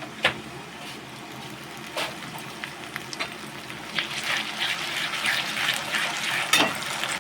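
Ginger-garlic paste going into hot oil and fried onions in a kadai: a few sharp clicks against the pan, then a crackling sizzle that builds from about four seconds in.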